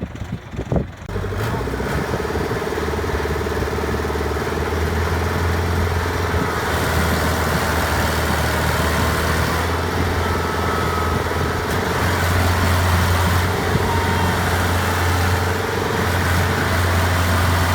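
Heavy farm machine's diesel engine running steadily, a little louder about twelve seconds in.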